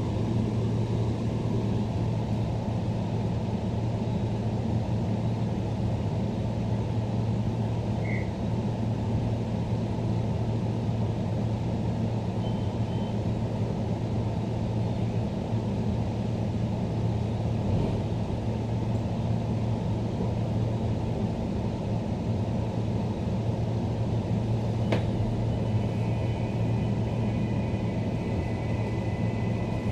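Steady low hum inside a Queensland Rail NGR electric multiple unit car standing at a platform. About 25 seconds in a click sounds, and steady high-pitched tones from the train's electrical equipment begin as it starts to pull away.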